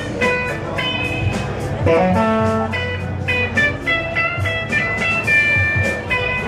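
Blues played on guitar: a quick run of plucked single notes, with a bent, sliding note about two seconds in.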